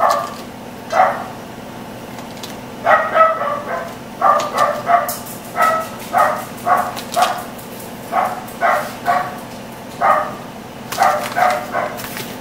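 Dogs barking over and over: short, sharp barks, some single and some in quick runs of two or three.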